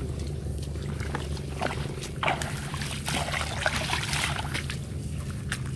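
Water splashing and dripping in short, scattered sounds, over a steady low hum.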